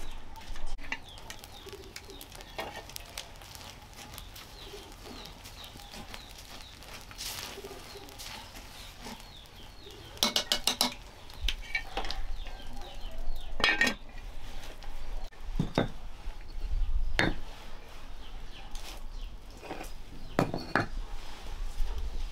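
Metal cooking pots and utensils clinking and knocking now and then over a wood cooking fire, with a run of quick clinks about ten seconds in, such as a pot lid being handled.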